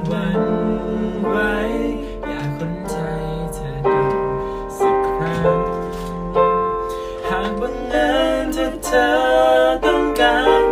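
Electronic keyboard played in chords and melody, with a voice singing along.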